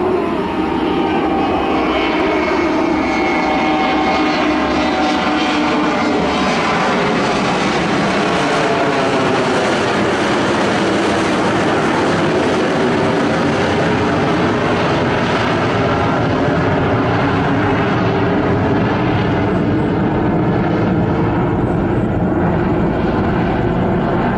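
McDonnell Douglas MD-83's Pratt & Whitney JT8D-219 turbofans at climb power just after takeoff. A loud, steady jet roar whose tones slowly glide down and back up as the aircraft climbs away.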